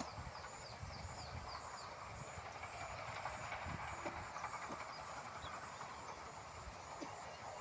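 Outdoor ambience of steady rustling hiss and low rumble, with a run of quick falling high chirps, about four a second, in the first two seconds, typical of a small bird, and a faint high pulsing tone throughout.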